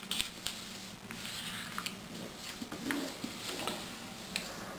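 A sheet of A4 paper being folded by hand, an edge brought over to a crease and pressed flat: soft rustling and sliding with a few faint crackles.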